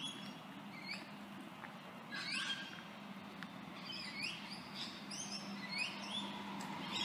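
Birds chirping, a scatter of short rising calls, over faint outdoor background. Near the end, a faint steady hum from an approaching electric suburban train grows.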